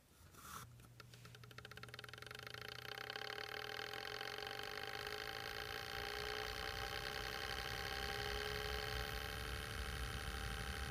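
Home Essentials foam-bladed retro desk fan switched on at high: a click about half a second in, then the small motor's very faint buzz spins up, growing louder and rising slightly in pitch over the first few seconds before running steadily.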